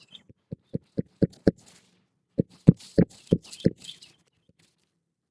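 Hammer driving a roofing nail into an asphalt shingle: two runs of about five sharp strikes each, roughly four a second, with a pause of about a second between them.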